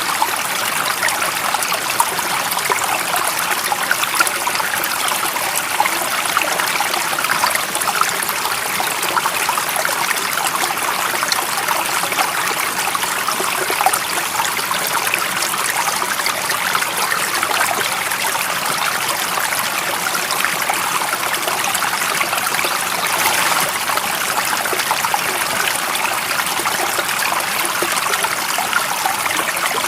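Water in a stream running and trickling steadily, an even, unbroken rush of splashing.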